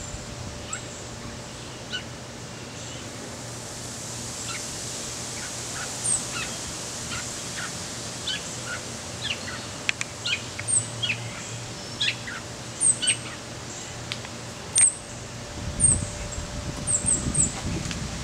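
Backyard birds chirping and calling: many short, sharp chirps and whistled notes, some very high, coming more often in the second half. A steady faint hum lies underneath, and near the end there is a low rumbling of camera handling.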